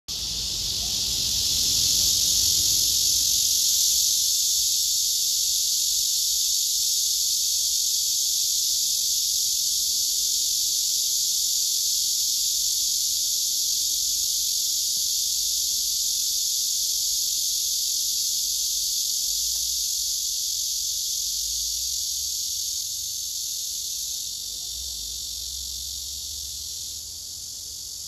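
Male cicada singing: a loud, steady, high-pitched buzz without a break, easing off slightly near the end.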